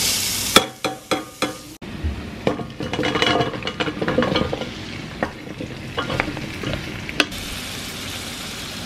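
Chopped onion tipped into hot oil in a stainless steel pot and stirred with a wooden spoon, sizzling as it begins to fry. Sharp clinks of the bowl and spoon against the pot come in the first two seconds, with more knocks and scraping from the stirring, and a steady sizzle near the end.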